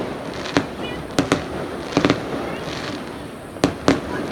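Fireworks bursting at a display: about seven sharp bangs, several in quick pairs, over a continuous background of distant crackle and rumble.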